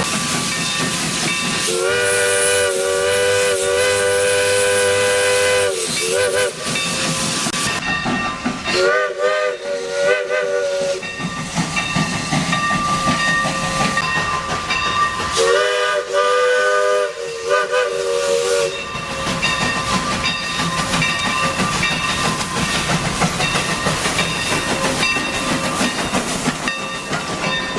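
Steam locomotive chime whistle sounding a chord of several notes: a long blast, a short toot, then a blast about nine seconds in and another about fifteen seconds in that breaks in two, some with a slight pitch bend at their onsets. A steady hiss of steam runs underneath.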